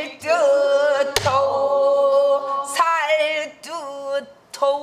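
A woman singing pansori, holding long notes that waver and bend in pitch, while beating the buk barrel drum a few times.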